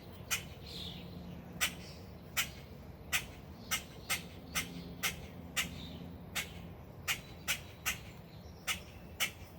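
A bird gives short, sharp calls over and over, a little under two a second. It is the squawking of a parent bird over its fledgling that cannot fly.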